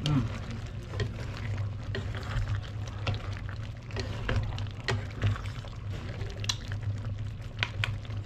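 Wooden spatula stirring a thick, saucy beef menudo stew in a pan: wet stirring sounds with scattered light clicks and taps of the spatula against the pan, over a steady low hum.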